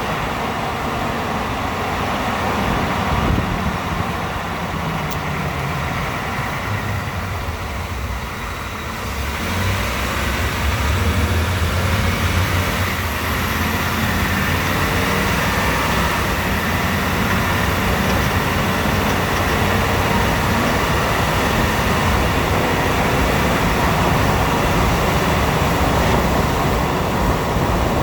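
A 2018 Ford F-150's 5.0-litre V8 running as the truck drives, with steady engine and road noise that grows louder and deeper about ten seconds in, as under more load.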